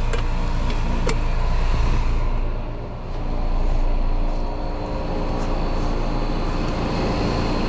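Outdoor air-conditioning condensing units running with a steady low hum, with a couple of sharp clicks in the first second or so.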